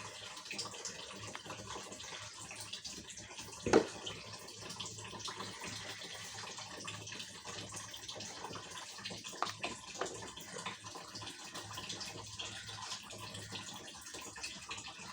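Water running from a kitchen tap while dishes are washed by hand, with scattered light clinks of utensils and one sharp knock about four seconds in.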